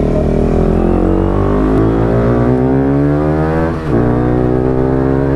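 Motorcycle engine accelerating hard, its pitch climbing steadily, with a quick gear change about four seconds in before it pulls and climbs again.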